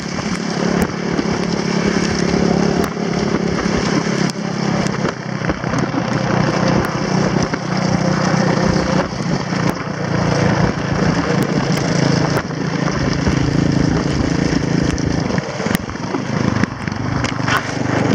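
Quad bike engine running steadily while towing sleds, over a constant rushing scrape of sled runners sliding on snow, with scattered clicks.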